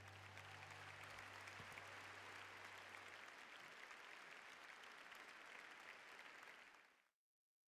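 Faint audience applause, with the last low note of the music dying away about three seconds in; the applause fades out shortly before the end.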